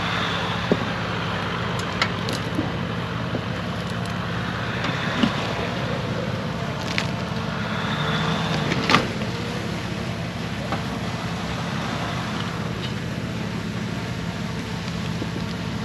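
Off-road 4x4's engine running steadily at low revs, with a few sharp clicks and knocks, the loudest about nine seconds in.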